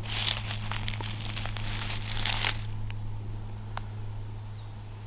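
Dry leaf litter and twigs crackling and rustling as a bolete mushroom is pulled up by hand from the forest floor, for about two and a half seconds, then quieter handling with a single click. A low steady hum runs underneath.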